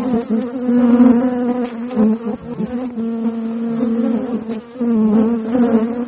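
Many honeybees flying at a hive entrance: a loud, steady buzz of wings whose pitch and level waver as individual bees pass close.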